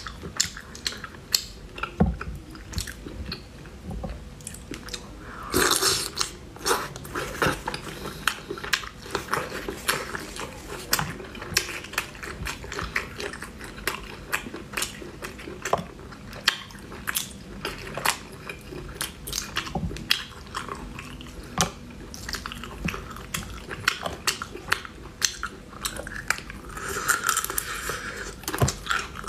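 Close-up eating sounds of a person eating spicy-sauced snails: many short, wet mouth smacks, sucking and chewing as the snail meat is drawn from the shells. There are longer sucking sounds about five seconds in and again near the end.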